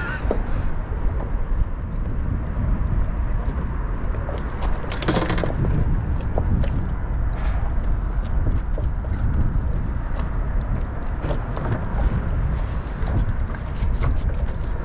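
Wind buffeting the microphone in a steady low rumble, with scattered knocks and clatter on a small fiberglass skiff's deck as a landed fish and tackle are handled, including a short rattle about five seconds in.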